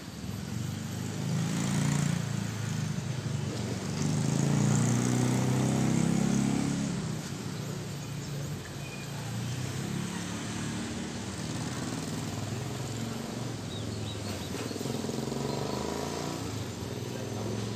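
Small motorcycle engine running, louder for the first several seconds, then quieter and steady.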